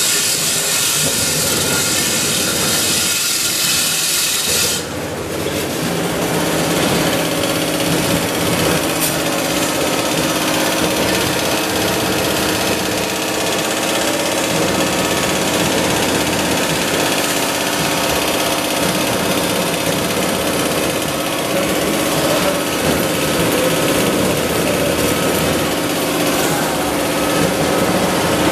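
Wire-processing factory machinery running steadily, a loud continuous din. About five seconds in, a strong high hiss drops away, leaving a steady mechanical hum with a few held tones.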